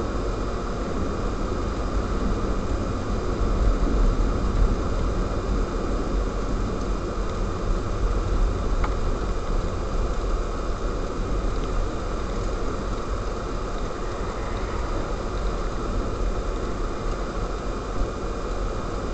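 Steady driving noise of a car on a snow-covered road, heard inside the cabin: engine and tyre noise with no change in pace.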